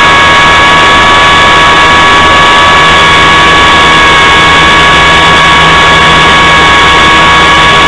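Engine and propeller of a model airplane in steady flight, picked up by a camera on the airframe: a loud, constant whine with a few steady high tones over a rushing noise, distorted near full level.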